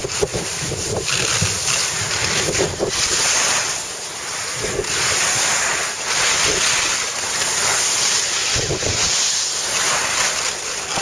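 Wind rushing over the microphone of a camera carried by a skier moving downhill, a loud rushing noise that swells and eases.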